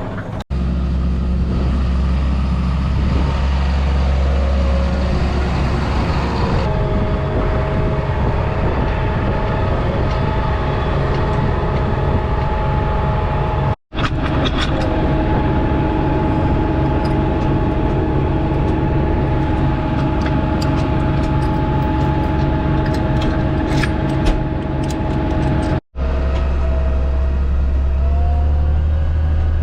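Heavy harvest machinery engines running steadily with a constant hum and held whining tones, broken by three abrupt cuts between shots.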